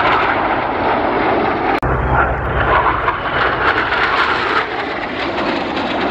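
Northrop F-5E Tiger II jet fighters flying past in formation, their turbojet engines giving a loud, steady rushing roar. The sound drops out for an instant about two seconds in, and the low rumble is stronger after it.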